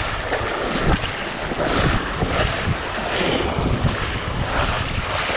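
Wind buffeting the microphone, with water splashing and sloshing in surges about once a second as legs wade through shallow, weed-choked water.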